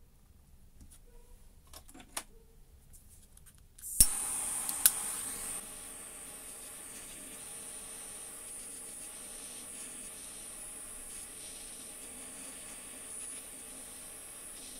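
A few light clicks of metal parts being handled, then a butane pencil torch is lit with a sharp click about four seconds in, a second click just after. Its flame then hisses steadily, loudest at first and then settling lower.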